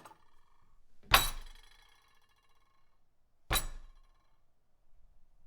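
Two heavy blows pounding on a dinner table, about a second in and again about three and a half seconds in. After each blow, tableware on the table rings and clinks, and the first ringing lasts longer.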